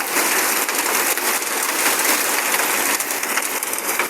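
Heavy rain mixed with hail coming down: a dense steady hiss dotted with many small sharp ticks.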